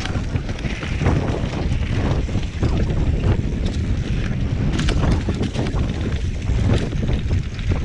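Wind rushing over the microphone of a rider-mounted camera as a mountain bike rides fast down a dirt singletrack, with the bike rattling and clattering over bumps and roots.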